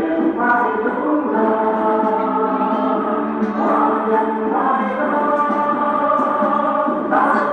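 Recorded Vietnamese song with singing over instrumental backing, in long held notes, with no bass.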